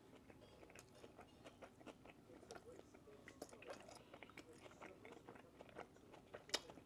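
Faint chewing of a mouthful of soft, crustless ham sandwich: small wet mouth clicks and smacks throughout, with one sharper click near the end.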